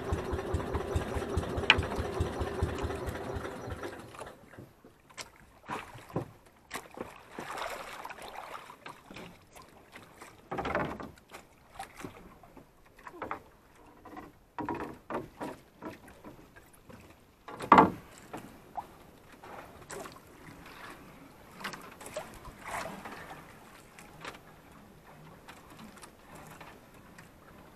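Outrigger boat's small engine running with a steady pulse, shut off about four seconds in. After that, water lapping at the hull and scattered knocks of gear against the boat, with one sharp loud thump a little past halfway.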